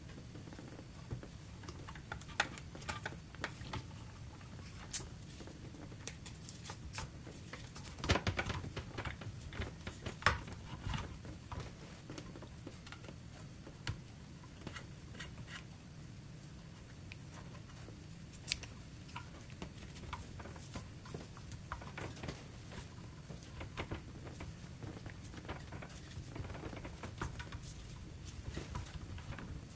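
Rubber strap wrenches and a plastic RO membrane housing being handled: scattered light clicks, knocks and rubbing as the straps are wrapped around the housing and pulled to break the tight cap loose. A faint steady low hum runs underneath.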